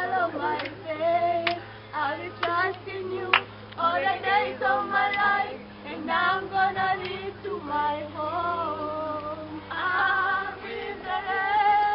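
Teenage girls and boys singing a Kenyan gospel worship song together, unaccompanied, with a sharp crack about three and a half seconds in.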